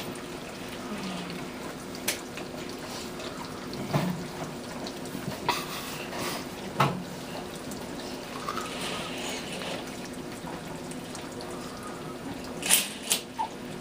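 Baby hiccuping: short, sudden hiccups a second or two apart, a pause, then two in quick succession near the end.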